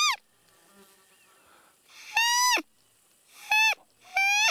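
Roe deer call blown by hand in a series of short pitched bleats, each rising, held briefly and dropping at the end: a longer one about two seconds in, then two shorter ones about a second later. The call imitates a roe deer to lure one in.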